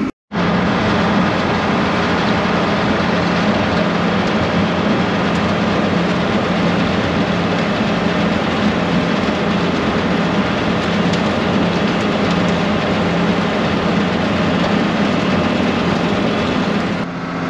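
Haybuster Big Bite tub grinder grinding hay bales: a loud, steady mechanical din of the grinder chewing through hay, with a constant low hum under it.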